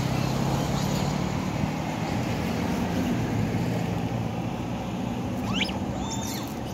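A passing motorcycle's engine hum, fading away, then a few short high squeals from macaques a little over five seconds in.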